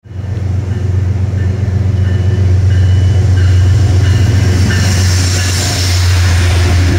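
A Metro-North GE P32AC-DM dual-mode locomotive passing close along the platform, with a steady low drone throughout and faint, short high-pitched squeals. Wheel-on-rail noise swells about five seconds in as the locomotive goes by.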